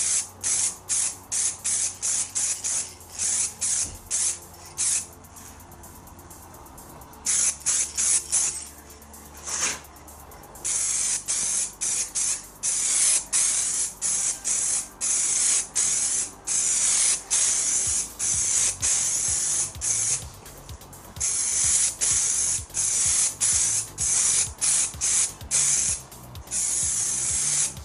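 Aerosol spray paint can spraying in quick bursts, about two a second at first, then in longer, steadier passes through the second half after a brief lull.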